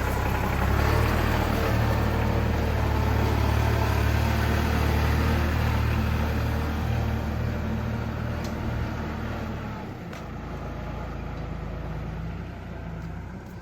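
The tow vehicle's engine runs steadily with a low hum and a hiss of road noise, and the hum drops off about ten seconds in.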